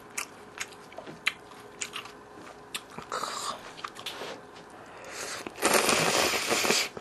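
A person slurping glass noodles (dangmyeon) from soup, with soft mouth and chopstick clicks through the first few seconds, then one long loud slurp lasting about a second near the end.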